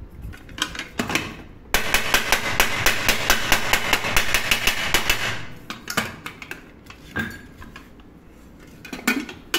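Metal knocking on a dented pressure cooker: a few single knocks, then a fast even run of light strikes, about nine a second for some three and a half seconds, then a few more single knocks.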